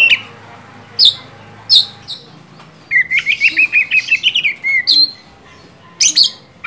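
Oriental magpie-robin (kacer) singing vigorously: loud, sharp whistled notes about a second apart, then about three seconds in a quick run of short notes lasting about two seconds, and a couple more sharp notes near the end.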